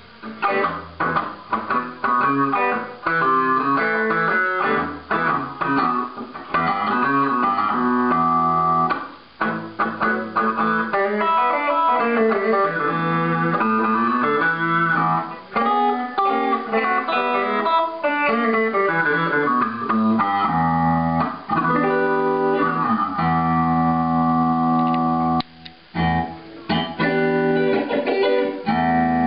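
Electric guitar played through a home-built fixed-wah circuit and splitter/mixer: quick runs of single notes, then held, ringing chords in the last third, with a brief stop near the end.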